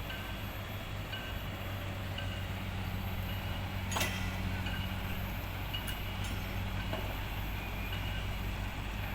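Steady low vehicle-engine hum with a background wash of noise, short faint high chirps now and then, and one sharp click about four seconds in.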